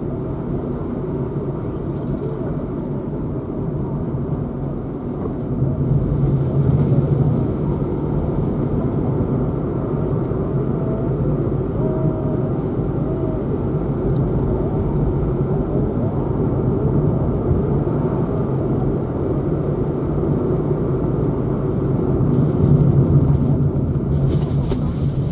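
A car on the move: steady engine and tyre rumble, a little louder from about six seconds in.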